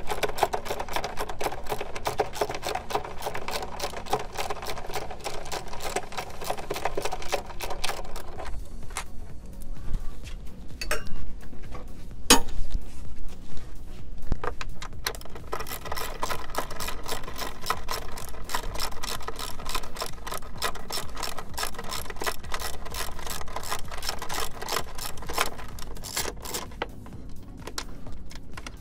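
Quarter-inch hand ratchet with extension and deep socket clicking rapidly as the engine cover's bolts and nuts are unscrewed, with one sharper click about twelve seconds in.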